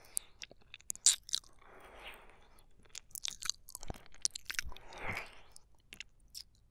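Close-miked ASMR mouth sounds of licking: wet tongue clicks and smacks, the sharpest about a second in, with two longer breathy slurps around two and five seconds in.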